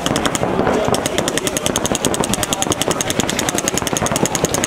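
Paintball marker firing a long, rapid, even string of shots, about a dozen a second, with scattered shots from other markers underneath.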